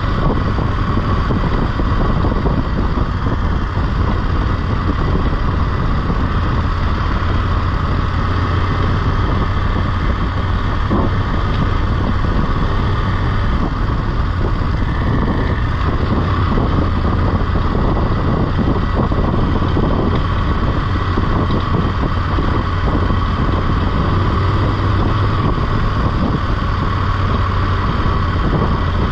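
BMW F850GS parallel-twin motorcycle running steadily at road speed, its engine hum mixed with wind rushing over the microphone.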